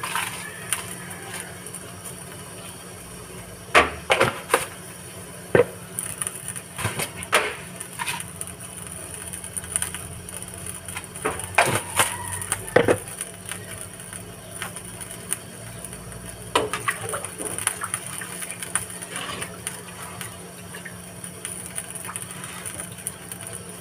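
Scattered clicks and knocks of kitchen utensils and a plastic container being handled around a cooking pot, over a steady low hum.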